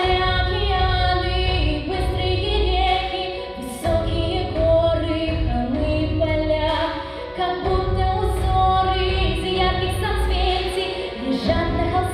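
A young girl singing a pop ballad into a handheld microphone, amplified in a hall, over an instrumental accompaniment with a heavy, pulsing bass.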